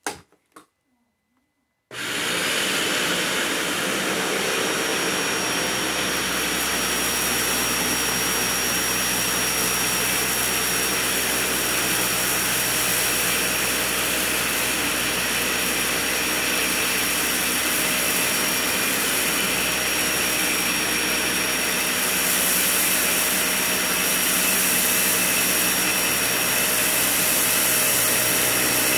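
Dyson vacuum cleaner switched on after a couple of clicks and running steadily: loud motor noise with a thin, steady high whine.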